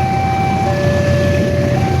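Railway level-crossing alarm sounding a two-tone electronic warning of an approaching train: a higher steady tone switches to a lower one a little over half a second in, then back to the higher one near the end, each tone held about a second. A steady low rumble of vehicles lies underneath.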